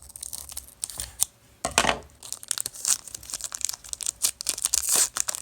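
Foil wrapper of a trading-card pack being cut open with scissors and pulled apart, with irregular crinkling and tearing rustles.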